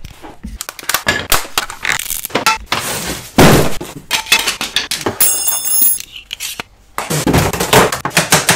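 Close handling noise of things being rummaged through and taken out of a cardboard box: rustling, clinks and knocks, with one loud knock about three and a half seconds in.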